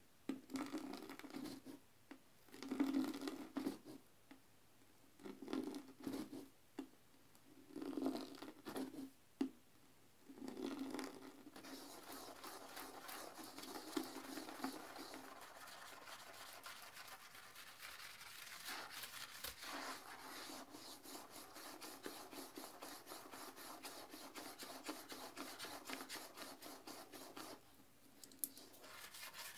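Blue-bristled toilet brush scrubbing the porcelain bowl of a toilet through foamy cleaner and water, a scratchy swishing. It comes in separate strokes of about a second each for the first ten seconds or so, then turns into steady unbroken scrubbing that drops off briefly shortly before the end.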